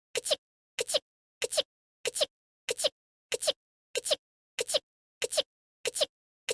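An anime girl's short voiced sneeze, the same clip looped over and over, about ten times here, one every two-thirds of a second with silence between.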